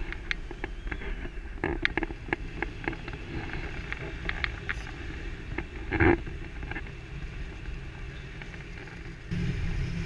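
Wind buffeting the camera microphone in flight under a tandem paraglider, with many scattered small clicks and a brief louder burst about six seconds in. The wind rumble grows louder near the end.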